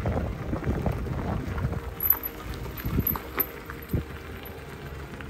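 Wind rumbling on the microphone, easing after about two seconds, with a few scattered light knocks and clicks.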